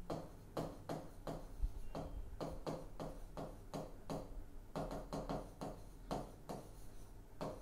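Stylus tapping and clicking on the glass of an interactive display as words are handwritten: irregular light taps, about two or three a second, over a low hum.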